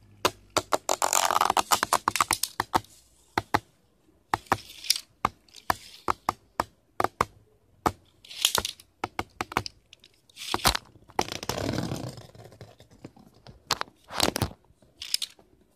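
A Beyblade spinning top clattering and scraping around a tray after launch. A dense run of sharp clicks in the first few seconds is followed by scattered knocks and short scraping rushes as it hits the tray's rim and other pieces.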